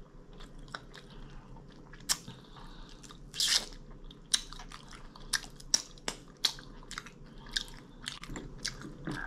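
A person chewing and biting food close to the microphone: irregular wet mouth smacks and crunches, with one louder crunch about three and a half seconds in.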